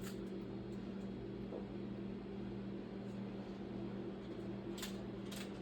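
Steady low hum of a kitchen appliance, with a few faint scrapes of a spoon spreading chili in a pan, one at the start and two near the end.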